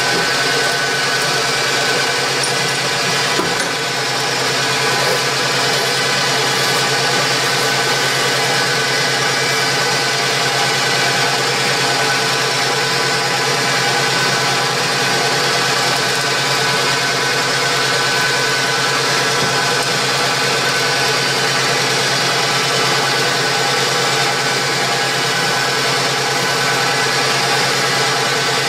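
Metal lathe running steadily with a steady multi-tone hum while a twist drill in the tailstock bores the first 3.75 mm hole into the spinning workpiece.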